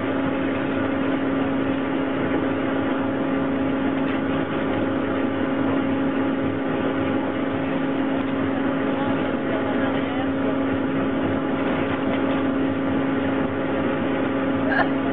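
Ski lift drive machinery running with a steady mechanical hum at one unchanging pitch.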